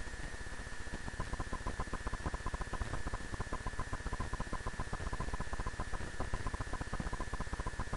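Steady rapid crackling static with a faint steady high whine.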